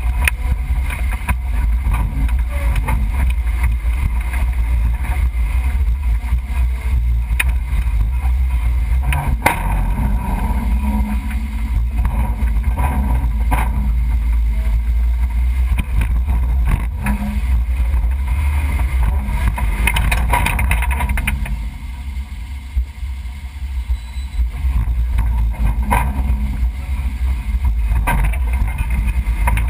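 1991 Range Rover Classic's V8 running at low speed as the truck crawls over a rocky off-road trail: a steady low rumble with scattered sharp knocks and rattles. The rumble eases off briefly a little past the middle.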